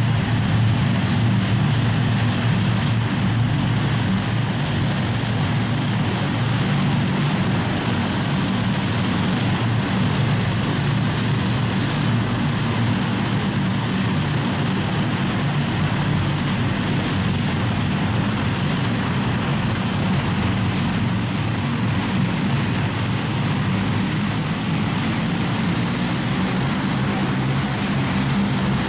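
Lockheed C-130H Hercules taxiing, its four Allison T56 turboprop engines running steadily: a low propeller drone under a high turbine whine. Near the end a second whine rises in pitch.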